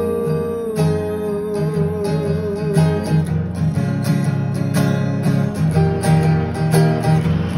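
Acoustic guitar strummed in a steady rhythm, with a man's voice holding the last sung note, wavering with vibrato, for about the first three seconds; after that the guitar plays on alone.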